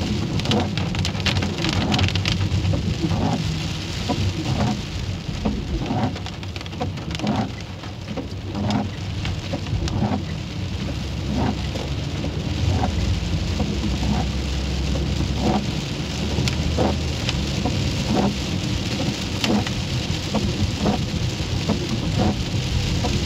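Rain falling on a car's windshield and roof, heard from inside the cabin: irregular drop taps over a steady hiss and a constant low rumble.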